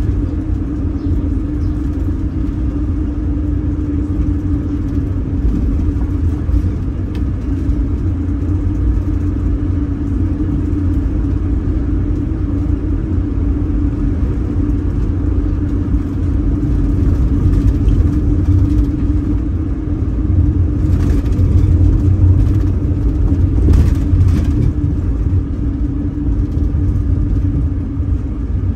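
A bus engine and road rumble heard from inside the moving bus: a steady low rumble with an even engine drone over it, and a couple of brief rattles about three quarters of the way through.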